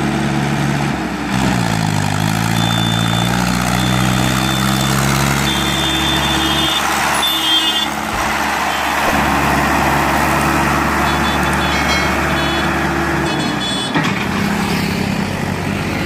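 Diesel tractor engines running under load as they haul loaded sugarcane trolleys past, the engine note dropping in pitch about a second in. The engine sound changes twice as one passing tractor gives way to the next.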